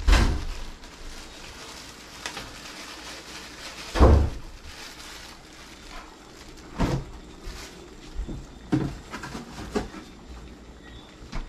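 Kitchen knocks and thumps as a refrigerator door is opened and shut and a plastic bag of frozen mixed vegetables is handled: a loud thump at the start, another about four seconds in, then a run of smaller knocks near the end.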